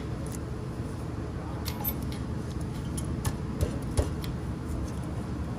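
A few short, irregular metallic clicks and clinks of hand tools and brake parts being handled, over a steady low hum.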